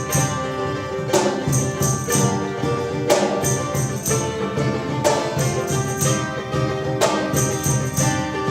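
Instrumental opening of a folk-rock song played by a band: guitars with tambourine jingles, no singing, with strong accents about every two seconds.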